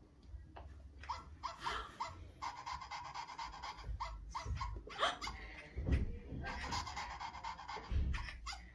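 Electronic plush toy dog making short recorded yips and barks, and twice a rapid, even pulsing sound lasting about a second each.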